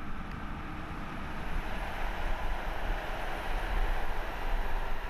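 Heavy military vehicles driving by: a steady rumble of diesel engines and tyres, a little louder in the second half.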